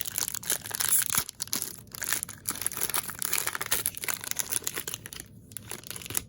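Wrapper of a 2021 Topps Series 1 baseball card pack being torn open and crinkled, a dense crackling that eases off about five seconds in.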